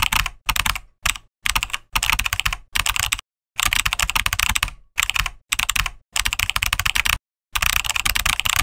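Computer-keyboard typing sound effect synced to a typewriter text animation: rapid key clicks in bursts, broken by short silences as the typing stops and starts.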